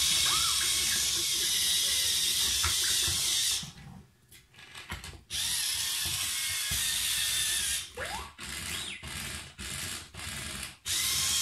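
Interactive R2-D2 toy's small electric drive motors and gears whirring as it moves about, dropping out briefly about four seconds in, then running in short stop-start spurts near the end. A few faint electronic whistles sound over the whir.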